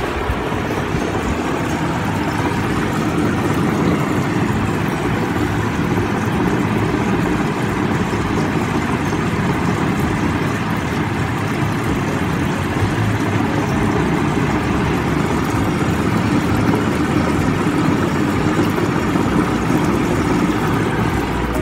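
Steady running noise of aquarium aeration: an air pump's hum under the continuous bubbling of air stones in the tank water.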